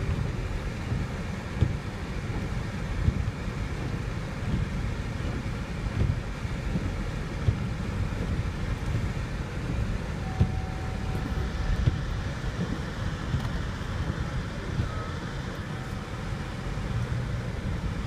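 Inside a car's cabin while it drives slowly over a snow-covered street: a steady low rumble from the engine and tyres, with occasional short knocks every few seconds.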